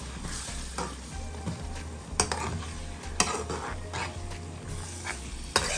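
A metal spoon stirring and scraping chopped carrots and onions frying in a non-stick pan, over a light sizzle, with a few sharp clicks as the spoon knocks the pan.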